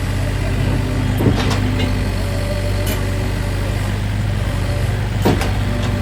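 Sany mini excavator's diesel engine running steadily, with two sharp knocks, one about a second in and one near the end.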